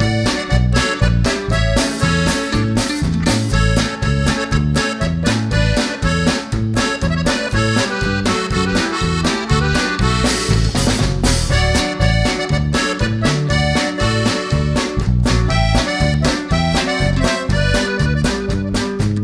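Background music with a steady beat under a melody of held notes.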